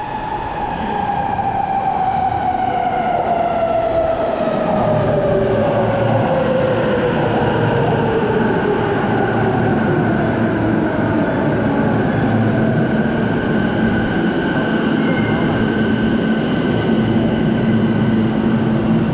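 Electric commuter train pulling into an underground station. Its motors whine in a falling pitch as it brakes, over a steady rumble, and it settles to a steady hum once it has stopped, about ten seconds in.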